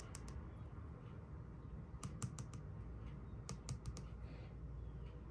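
Small plastic clicks and taps from fingers handling a plastic toy figure and pulling off its snap-on hat: a few sharp clicks near the start, a cluster about two seconds in, and another around three and a half seconds.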